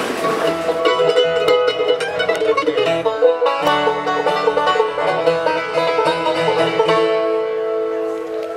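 A bluegrass band playing live on banjo, mandolin, acoustic guitar and upright bass, with quick picked notes over a walking bass. The noise of the previous scene fades out in the first second, and near the end the band settles onto a held chord.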